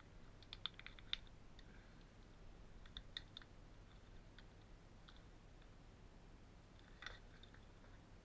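Faint, sharp clicks from a hand tool working at plastic trim and sealant in the corner of a caravan wall and floor: a cluster about a second in, a few more around three seconds, and one near the end.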